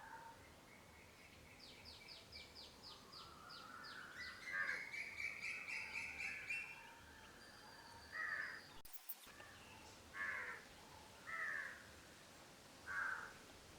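Crows cawing: four short, separate caws in the second half, with a fast run of high bird chirps and a longer call before them.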